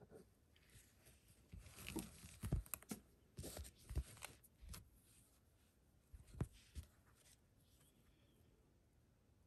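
Faint handling noise of hands working a quilted fabric panel and pulling embroidery thread through it: several soft rustles and light knocks in the middle, with stillness around them.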